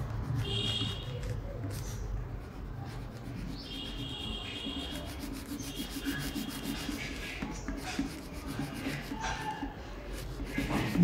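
Blue crayon being rubbed across paper in quick back-and-forth strokes: a steady scratchy shading sound.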